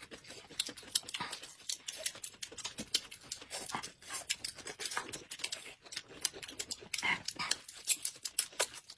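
Close-up eating sounds of bamboo shoots: wet mouth smacks and chewing, mixed with the fibrous layers of the shoots being torn off by hand, making a dense, irregular run of small clicks and smacks.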